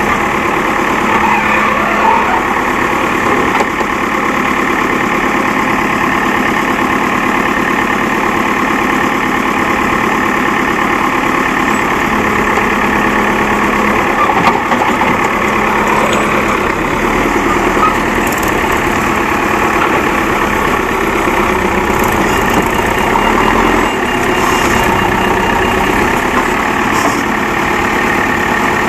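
Terex backhoe loader's diesel engine running steadily, its speed holding constant.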